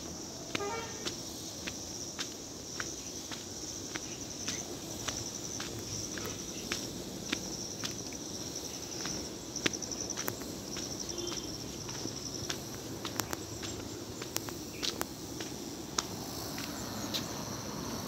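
Footsteps crunching on a loose gravel-and-stone dirt road at a walking pace, over a steady high buzzing of insects.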